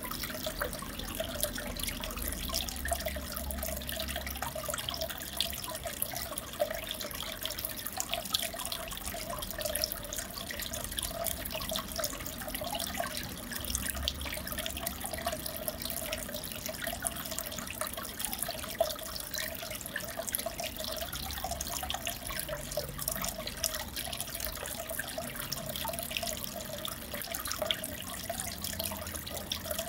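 Aquarium water trickling and bubbling steadily, with many small bubble pops over a steady hum.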